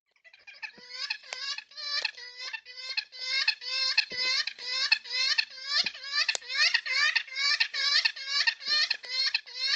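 A bird calling in a fast run of short, harsh repeated notes, about three a second, starting abruptly and growing louder over the first couple of seconds.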